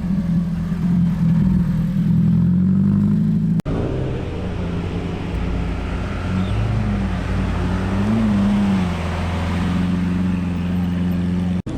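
A car engine running with a low, steady rumble, its pitch rising briefly about eight seconds in. The sound breaks off for an instant about a third of the way through.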